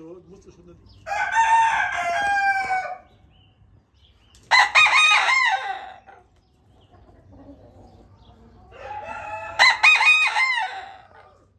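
Roosters crowing: three separate crows of about one and a half to two seconds each, with short pauses between them. The last crow comes from a Friesian rooster.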